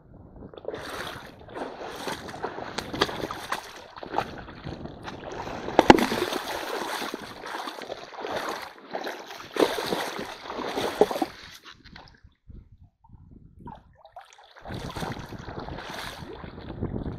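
Shallow stream water splashing and sloshing irregularly as a person wades over the stones and works a bamboo-framed hand net through the water, lifting it out. The sharpest splash comes about six seconds in, and the water goes quiet for a couple of seconds near the end before the sloshing resumes.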